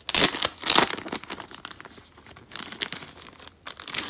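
Thin clear plastic packaging crinkling as a zip pouch and its wrapping are handled, in irregular rustling bursts, loudest in the first second.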